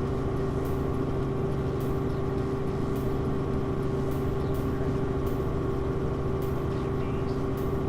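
Helicopter cabin noise: the steady drone of the engine and rotor with a constant hum, recorded from inside the aircraft.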